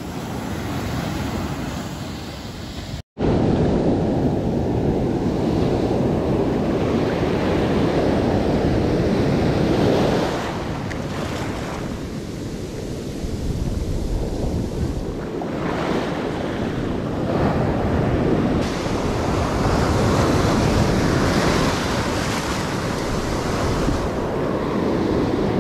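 Ocean surf breaking and washing over the beach, with wind buffeting the microphone. After a brief dropout about three seconds in, the surf and wind come louder and rougher, heard from out in the wash.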